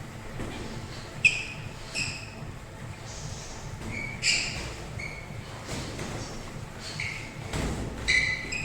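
Athletic shoes squeaking on a gym floor during boxing sparring: about eight short, high squeaks at irregular intervals, with a sharp knock about a second in.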